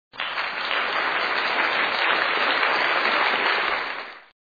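Stock applause sound effect: a crowd clapping steadily for about four seconds, fading out at the end.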